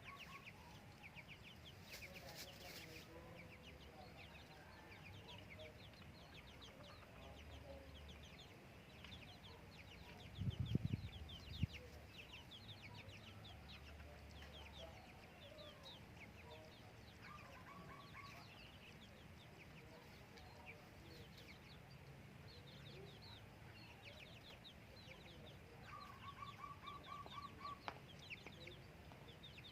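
Faint farmyard bird sounds: chickens clucking in short quick runs, over many rapid high chirps from small birds throughout. A low thump or knock about ten to twelve seconds in is the loudest thing.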